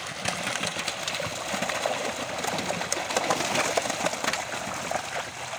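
Many live fish thrashing in a net held in shallow pond water: a dense, rapid patter of splashes and slaps.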